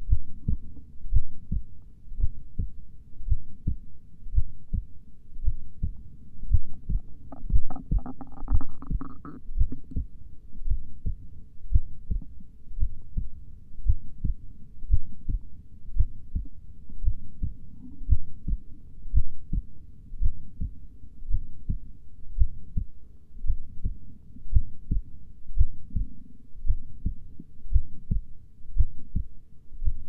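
A slow heartbeat: steady double thumps, lub-dub, repeating evenly about once a second.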